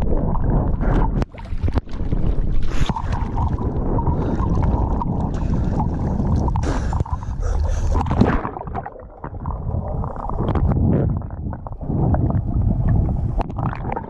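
Seawater sloshing, splashing and gurgling around an action camera held at the surface by a swimmer, changing as the camera dips under and comes back up.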